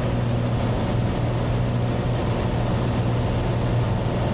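Cabin drone of a Cessna 182 in flight: its six-cylinder Lycoming engine and propeller running steadily, a constant low hum under a wash of air noise.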